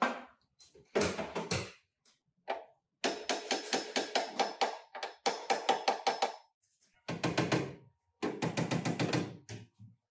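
Quick runs of hammer strikes on metal, several taps a second, in short bursts broken by sudden gaps.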